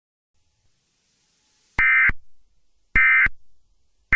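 Emergency Alert System end-of-message data bursts: short, identical, buzzy digital bleeps, two of them about a second apart starting about two seconds in, with a third beginning at the very end. They are the signal that closes the alert.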